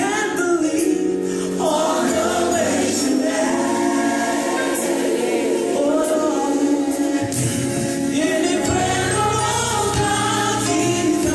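Gospel song: a choir singing over a band, with a bass line coming in about seven seconds in.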